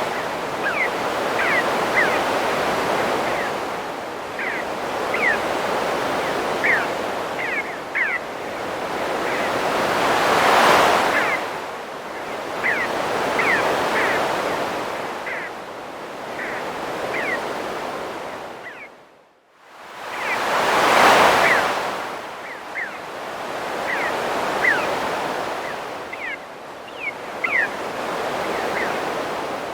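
Ocean surf washing in and out, swelling about every ten seconds, with birds giving short high chirps throughout. The sound drops away briefly about 19 seconds in, then the surf swells again.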